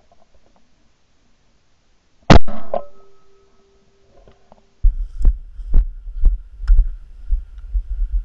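A single shotgun shot about two seconds in, with a brief ringing tail, bringing down a flying pheasant. From about five seconds in come walking footsteps on snowy ground, about two a second, over a heavy low rumble on the body-worn camera.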